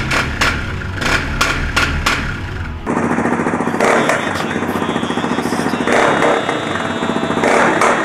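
Background music with a steady beat, then from about three seconds in a Suzuki LT-Z400 quad's single-cylinder four-stroke engine running through an FMF Q4 slip-on muffler, revved in a few blips.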